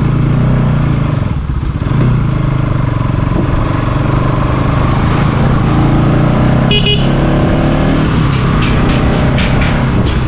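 Motorcycle engine running on the move, its pitch rising and falling with the throttle. A brief high-pitched beep sounds about seven seconds in.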